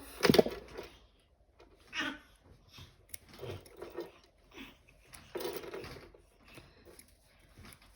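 Soft handling sounds of fabric and small scissors as loose thread ends are trimmed off a sewn seam, with one sharp click about a third of a second in.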